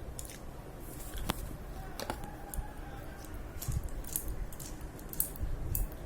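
Scattered, irregular small clicks and taps from hands working an oiled bicycle freewheel and its parts.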